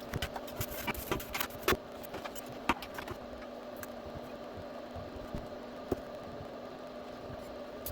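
Small clicks and taps of metal parts and screws being handled during reassembly of a preamp chassis. They are thick in the first three seconds and come only now and then after that, over a steady background hum.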